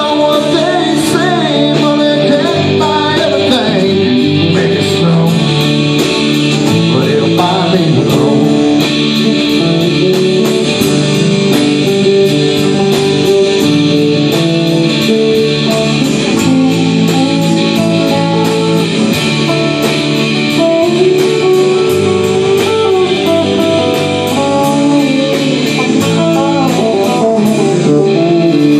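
Live band playing: electric guitars over bass and drums with a steady cymbal beat, and a voice singing.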